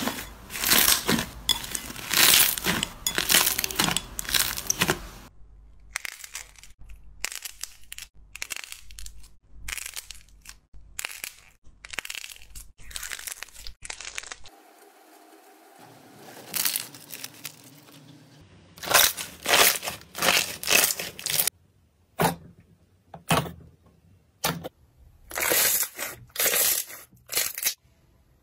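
Hands squeezing, stretching and tearing slime: fluffy cloud slime and glossy slime worked between the fingers, giving runs of quick clicks and crackles in clusters, with quieter gaps between the squeezes.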